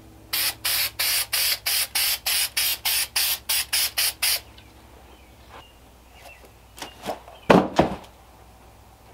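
Aerosol spray paint can sprayed in about seventeen short, quick hissing bursts, about four a second, for some four seconds. A few seconds later come a few brief handling knocks and rustles, the loudest sounds here.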